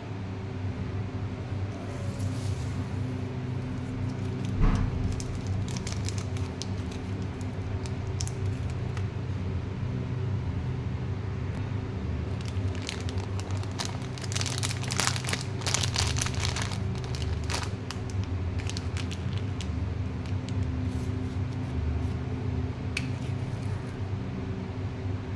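Thin plastic sweet packets crinkling and rustling as they are handled, densest in the middle, with one knock on the table about four and a half seconds in. A steady low hum runs underneath.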